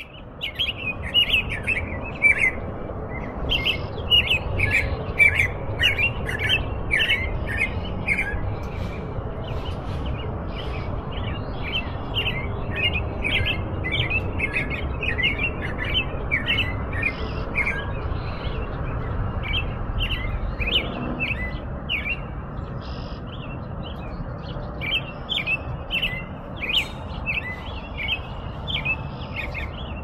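Veery (sabiá-norte-americano, a North American thrush) singing: a quick, continuous run of short chirping notes, over a steady low rumble.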